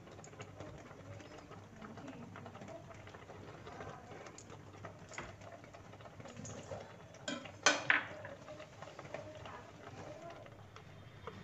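Faint kitchen clatter: light clicks and knocks of utensils, with a few sharper metallic clicks about seven and a half seconds in, over a low steady hum.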